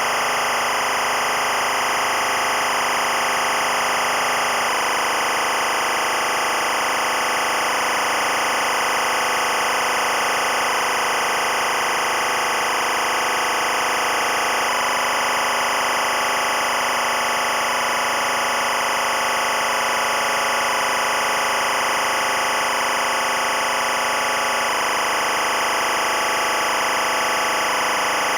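Dense, steady wall of electronic noise and drone from the film's score, many sustained tones blended into a hiss, holding at an even level without a beat.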